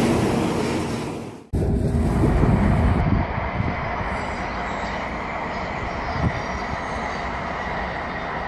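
Shinkansen bullet train running close past a station platform with a loud rushing noise. About a second and a half in, this cuts off abruptly to a lower, steady rumble of a Shinkansen heard from afar, with a faint high tone above it.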